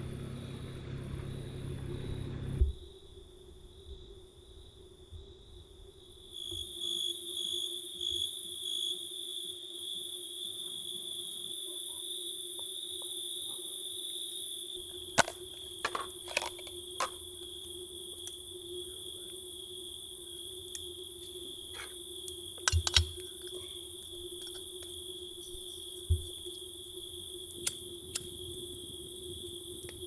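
Steady high-pitched insect chirring, pulsing for a few seconds early on, with a low rumble that cuts off abruptly about two and a half seconds in and a few sharp clicks and knocks in the second half.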